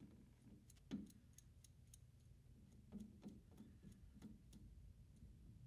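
Faint, irregular clicking of a Starrett outside micrometer's thimble being turned and its spindle closed on a turned metal part, with the strongest click about a second in, over a low hum.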